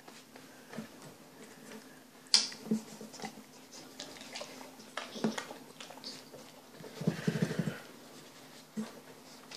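Quiet handling noises of hands and a cloth rubbing over a dog's face, with a few sharp taps and a short rapid rattle about seven seconds in.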